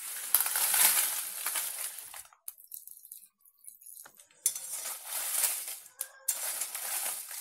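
Dried reshampatta red chillies tipped into a metal kadhai and stirred as they roast: a crisp, dry rustling and rattling of the pods against the pan, in three bursts, the first and loudest as they go in, the other two shorter after a pause.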